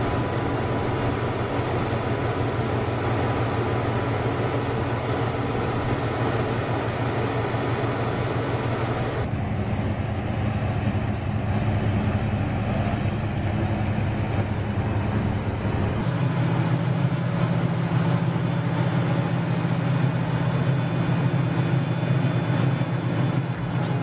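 Concrete paving machinery running steadily: the engine of a slipform paver working alongside a concrete mixer truck. The pitch of the engine noise changes abruptly about nine seconds in and again about sixteen seconds in.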